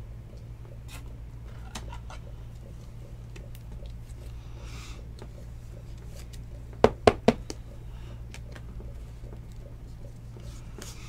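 Hands handling a stack of trading cards: soft rustles and faint clicks, with a quick run of about four sharp taps about seven seconds in, over a steady low hum.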